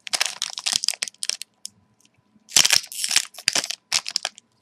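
Crinkling and crackling of a hockey card pack's wrapper being handled and torn open, in two spells with a short pause between, the second louder.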